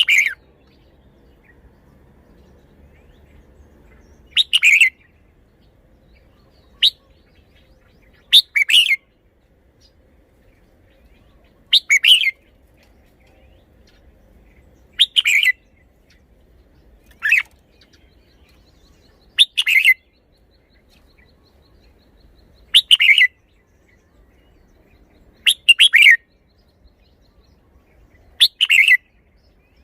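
Red-whiskered bulbul singing short, loud song phrases, each under a second long, with a new phrase every two to four seconds.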